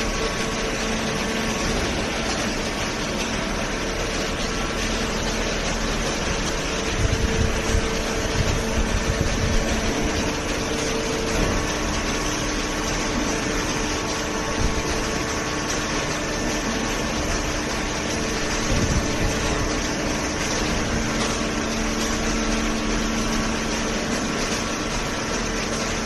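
Horizontal cardboard baler and its feed conveyor running: a steady industrial machine hum and rumble, with a few louder knocks about a third of the way in and again about three-quarters through.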